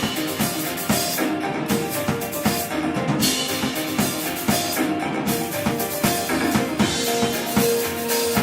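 Live band playing, with the drum kit out front keeping a steady beat of kick and snare under ringing cymbals and sustained pitched instrument notes.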